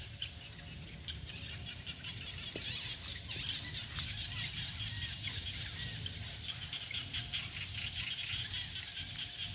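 Outdoor forest ambience: a steady high buzzing chorus with a few short bird chirps, over a low rumble.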